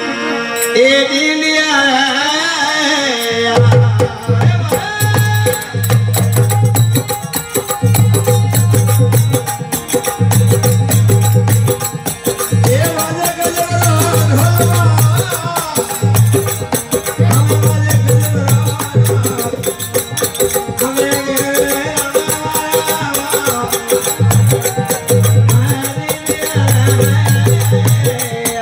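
Live Rajasthani devotional folk song: a man sings a bhajan over harmonium. About three and a half seconds in, a drum and small hand cymbals come in with a steady, driving beat.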